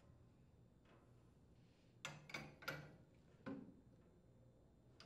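A few faint metal clicks and knocks from a pipe wrench on a black iron gas pipe union as the union is tightened. There are about four of them, between about two and three and a half seconds in, with near silence around them.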